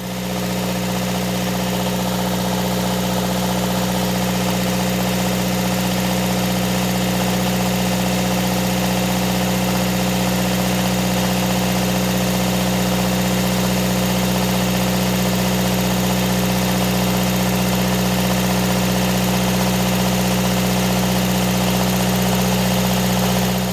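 Bus's onboard engine-driven generator set running at a steady speed, its clogged fuel filter, the cause of its trouble, just cleared of debris.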